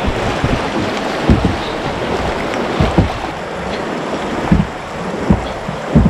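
Rushing whitewater of a river rapid around a canoe, with several short low thumps every second or two.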